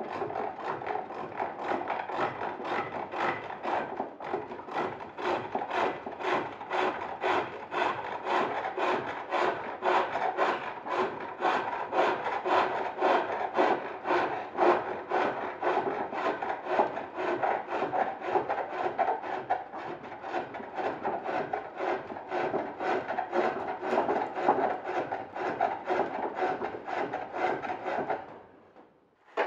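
A turning chisel cutting a spinning wooden workpiece on a foot-powered pole lathe, a rhythmic shaving and scraping as the cord drives the wood back and forth. It stops a second or so before the end.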